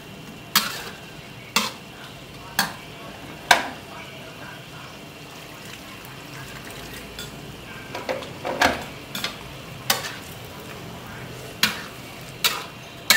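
A metal spatula scraping and knocking against a steel wok about once a second as shrimp and vegetables are stir-fried, over a steady sizzle. The strokes stop for a few seconds midway, then come back in a quicker cluster.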